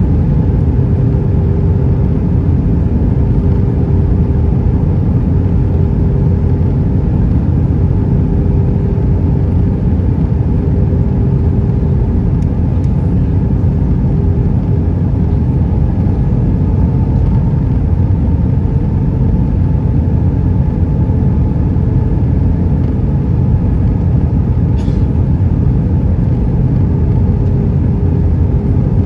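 Steady roar of an Airbus A320's engines and rushing air heard inside the passenger cabin during the descent on approach with flaps extended, with a steady droning tone running through it.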